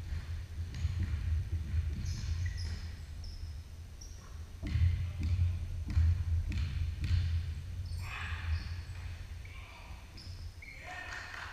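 Basketball bouncing on a hardwood court during play, a series of thuds, with short high-pitched sneaker squeaks from players running on the floor.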